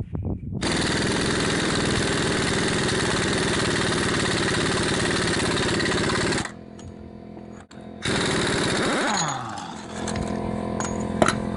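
Power impact wrench hammering loose the 36 mm front axle nut on a Jeep Cherokee Dana 30 axle. It runs in one long burst of about six seconds, stops, then fires again briefly about eight seconds in and winds down as the nut comes free.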